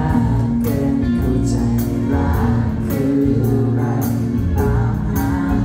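Live pop song played loud through a concert sound system: singing over a steady beat and heavy bass.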